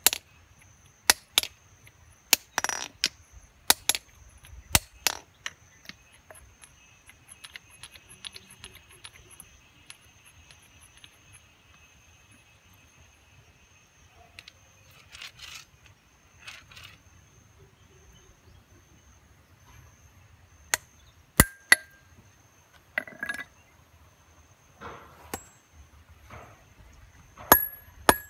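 Hand hammer striking a small steel chisel set on a stone slab: sharp metallic knocks, some with a brief ring. A quick run of blows at the start, a long pause, then another run of blows in the last several seconds, as the mason works to split the stone.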